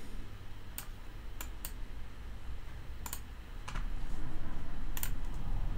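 About six separate clicks from a computer keyboard, spaced out rather than steady typing, over a low background hum that grows louder about four seconds in.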